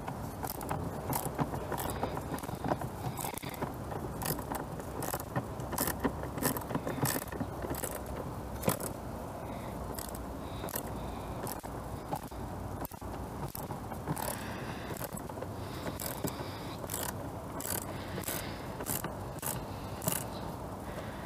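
Socket ratchet wrench clicking in repeated short runs as it turns out a bolt on the air-filter housing.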